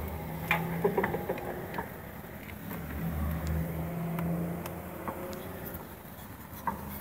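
A low, steady engine hum with scattered sharp clicks over it.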